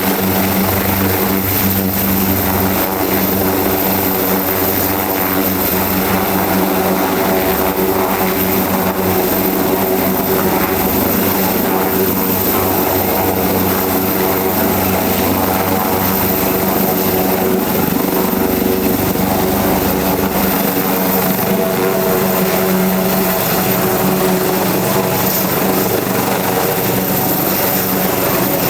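Leonardo AW189 twin-turboshaft helicopter running steadily: a constant engine and rotor drone with a thin high turbine whine, holding level throughout.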